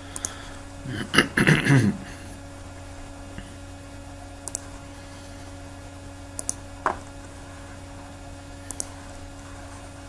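Computer mouse clicking a few times, single and in pairs, as polyline points are picked, over a steady low electrical hum. A short vocal sound comes about a second in.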